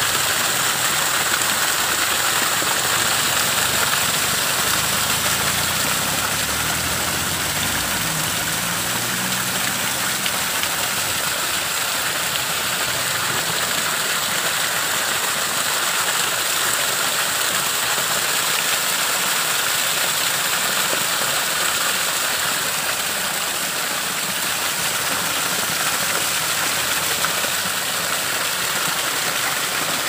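Small waterfall, thin streams of water splashing steadily down a rock face, a constant hiss of falling water.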